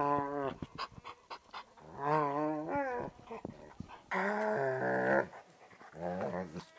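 An animal voice giving four long, warbling growl-like calls, each lasting about a second, with a few sharp clicks between the first two.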